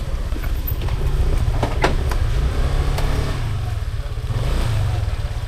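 Car driving over a rough, uneven road: a steady low rumble with scattered knocks and rattles, the sharpest about two and three seconds in.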